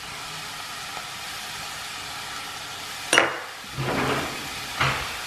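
Diced carrots and butternut squash sweating in butter in a saucepan, a steady soft sizzle. A sharp knock about three seconds in, followed by a few brief scraping, handling sounds.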